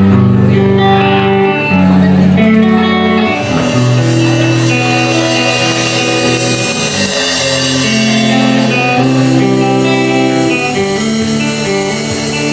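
Live rock band playing a slow intro, electric guitar and bass holding long sustained chords that change every second or two.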